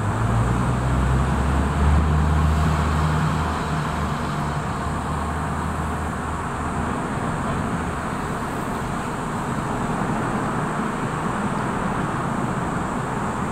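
Low, steady engine hum that fades away by about seven seconds in, over a steady outdoor background noise.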